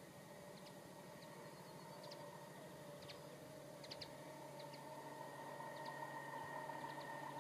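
Class 70 diesel locomotive approaching, its engine a faint steady drone with a few held tones that grows slowly louder. Birds chirp briefly now and then.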